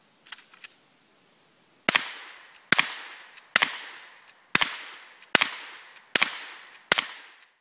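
Kel-Tec KSG 12-gauge pump shotgun fired seven times in quick succession, a shot a little under every second, each report trailing off in a ringing echo. A few quieter clicks come just before the first shot.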